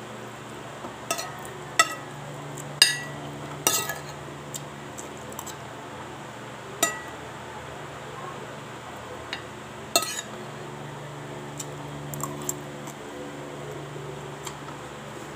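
Metal spoon clinking and scraping against a ceramic plate while eating rice. The clinks are sharp and come at irregular intervals, with the loudest about three seconds in and again about ten seconds in.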